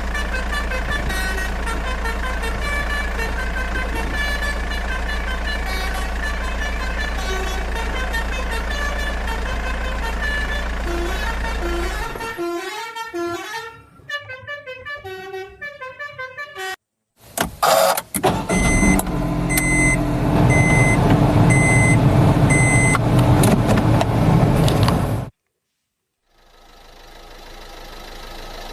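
A run of vehicle sounds, most likely sound effects for the toy trucks and machines. A steady engine-like drone gives way to electronic chirping, then a louder stretch with a horn and a regular beeping like a reversing alarm, which stops abruptly.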